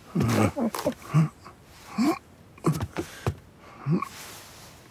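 Cartoon vocal sound effects: a run of short, strained grunts and mutters, about one a second, several sliding down in pitch, as of effort with each step.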